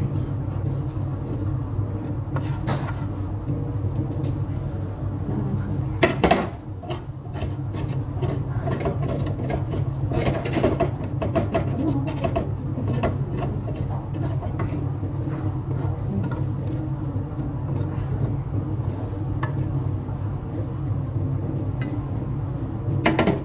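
Spatula scraping and knocking against a frying pan as food is scraped out onto a plate, with sharper knocks about six seconds in and again near the end. A steady low hum runs underneath.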